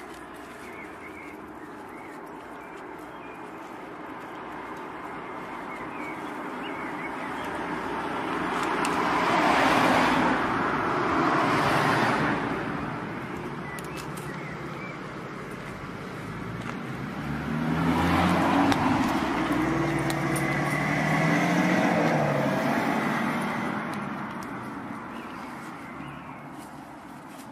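Two road vehicles driving past one after the other, each swelling up and fading away over several seconds; the second carries a clear engine note.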